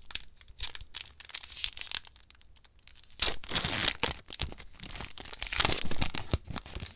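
A foil booster-pack wrapper being handled and torn open: light crinkles at first, then a louder stretch of tearing and crinkling about three seconds in, with more crinkling after.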